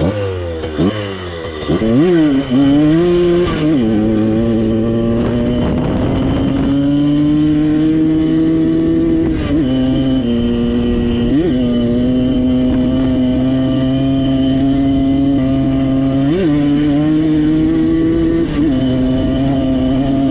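Two-stroke engine of a Simson S51 moped, fitted with an 85 cc four-port PZ Tuning cylinder and an aftermarket exhaust, revving up through the gears as it pulls away. It then runs at steady high revs, with a few brief drops and sharp rises in pitch as the throttle is changed.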